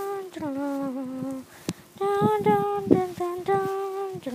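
A high voice singing or humming a wordless tune in held notes that step up and down in pitch, with a few low knocks and a sharp click about two to three seconds in.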